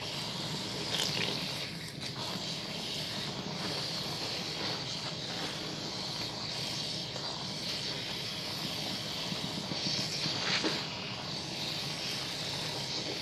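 Wet bar soap being rubbed into a lather: a steady wet hiss with a few brief squishes.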